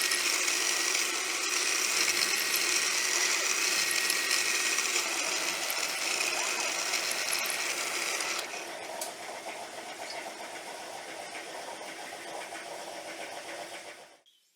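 Milling machine with an 8 mm end mill cutting a 4 mm deep groove across a steel bar: a loud, steady cutting noise with a high whine. About eight seconds in it drops to a quieter steady run as the cut ends, then cuts off near the end.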